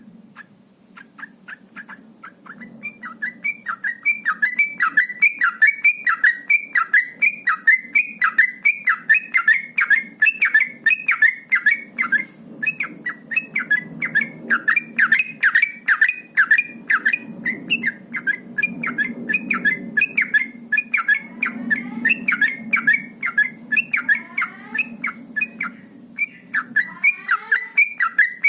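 Yellow-vented bulbul (trucuk) singing a fast, unbroken run of short whistled phrases, about three a second, in the rapid nonstop style bird-keepers call 'ropel'. The song builds up over the first few seconds, over a low steady hum.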